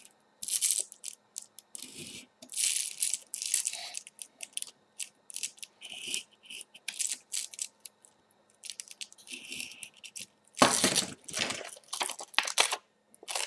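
Box cutter slicing through velcro along a steel ruler in short, irregular scraping strokes, cutting between punched holes to open strap slots; a cluster of louder strokes comes near the end.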